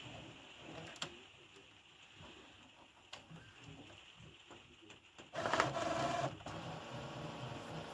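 Epson Expression Premium XP-6000 inkjet printer running: a few faint clicks, then a little after five seconds in a louder motor whir for about a second, followed by a steady, quieter pulsing mechanism, as the printer works through a photo-paper feed attempt.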